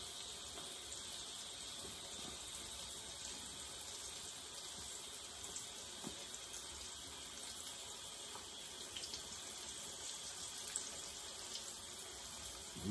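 Cassava slices shallow-frying in oil in a frying pan: a steady sizzle, with a few faint clicks as the pieces are turned with chopsticks.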